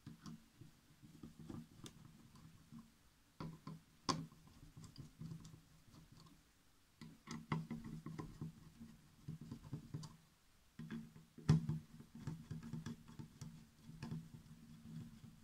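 Faint clicking and scraping of a screwdriver loosening the screws that hold a graphics card's cooler, with sharper clicks about four seconds in and again near twelve seconds.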